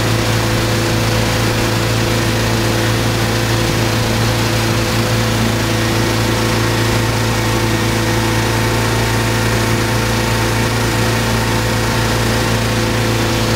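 Tow boat's engine running steadily at towing speed, with the rush of water and wind beneath it.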